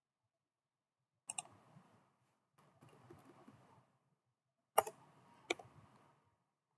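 A few faint, sharp clicks at a computer: one a little over a second in and two close together near the end, with soft faint handling noise between them.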